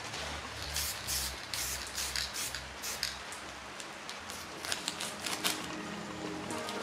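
Paper rustling and a series of short swishing rubbing strokes as a decal's transfer sheet is peeled off and rubbed down onto the car body by hand. The strokes come in a quick run over the first few seconds and again shortly after the middle.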